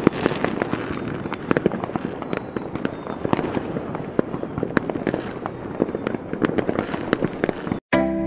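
Fireworks going off: a dense run of sharp cracks and pops over a steady crackling rush. It cuts off abruptly near the end, and music begins.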